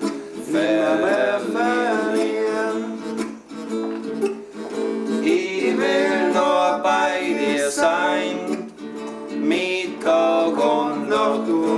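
A man singing a German folk-style love song to a strummed acoustic guitar.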